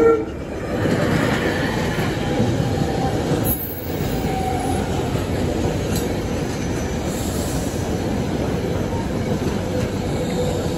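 SEPTA electric multiple-unit passenger train rolling past at slowing speed as it comes in to stop at the station. A steady rumble of wheels on rail, with faint squealing tones.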